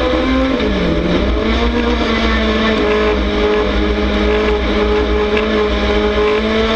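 A dirt-track race car's V8 engine running hard at high revs. Its pitch dips briefly about a second in, then climbs back and holds steady.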